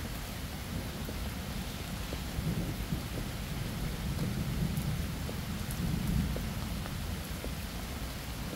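Steady rain hissing, with scattered drops ticking and a low rumble of distant thunder swelling up three times, loudest about six seconds in.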